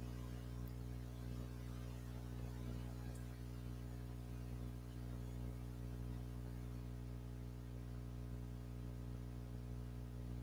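Steady electrical mains hum with faint hiss in the recording, and two faint clicks in the first few seconds.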